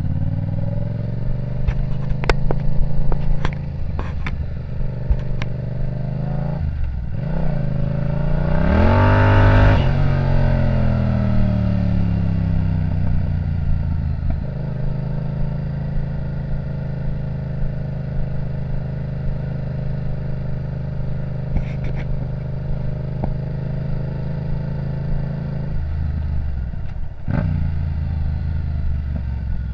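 Yamaha MT-07's parallel-twin engine running while the bike is ridden along a gravel track. It revs up and back down about eight to ten seconds in, and the engine note dips briefly a few other times. Several sharp clicks come early in the ride.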